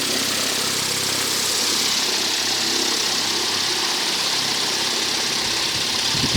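Homemade wind machine, a washing-machine motor turning a 35-inch propeller on a 36-volt battery, running steadily: an even rush of blown air over a faint motor hum.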